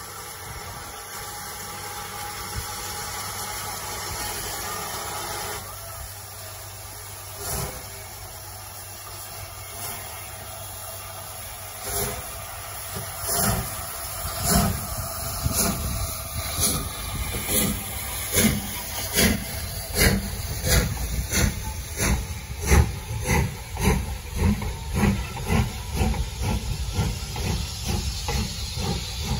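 Steam locomotive hissing steam, then pulling away: exhaust chuffs begin about twelve seconds in and come faster and faster as it gathers speed.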